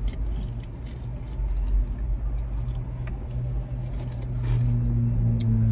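Close-miked chewing and lip-smacking of someone eating a turkey stick dipped in ranch, scattered small wet clicks over a low steady rumble. A steady low hum joins near the end.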